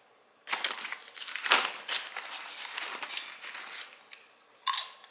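Rustling and crinkling of a burnt bag of microwave popcorn being handled, in several short bursts starting about half a second in.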